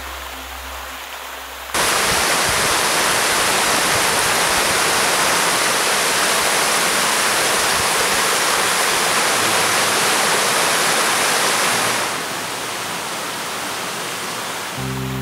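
River water rushing over a rocky waterfall cascade, an even hiss. It comes in suddenly, loud, about two seconds in and falls to a softer level around twelve seconds. Music enters just before the end.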